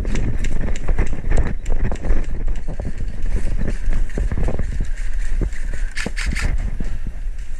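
Irregular footsteps and rustling of gear as a player moves on foot, over a heavy low rumble of wind and handling noise on a body-worn camera's microphone.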